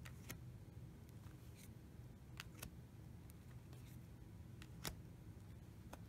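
Faint, sparse clicks of thick matte oracle cards being handled and shown one at a time, the firmest about five seconds in, over a low steady room hum.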